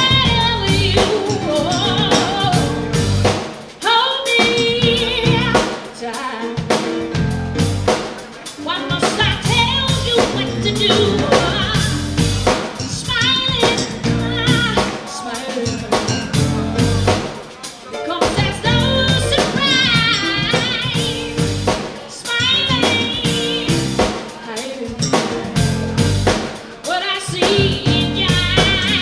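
A live band playing: a woman sings the lead with vibrato in her voice, over a drum kit, electric bass and keyboard.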